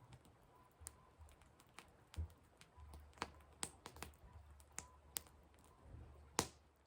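Firewood burning in a fire, crackling with irregular sharp snaps and pops, the loudest snap near the end.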